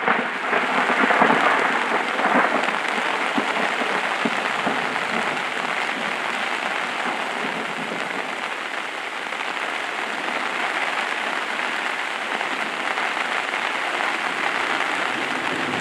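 Heavy rain pattering steadily on a camping tarp overhead, a dense even hiss of drops, a little louder in the first couple of seconds and then steady.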